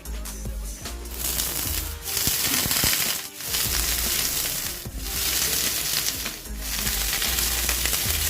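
Loud, even hissing noise from chutney preparation in several stretches with short breaks between them, over background music with a steady bass.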